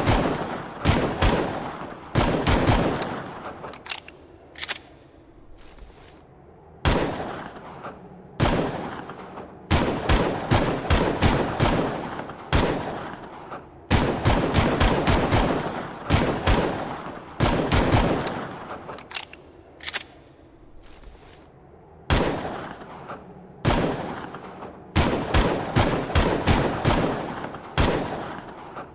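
Longslide pistol gunshot sound effect: rapid strings of shots in quick succession, a new string every couple of seconds, each trailing off in an echoing tail.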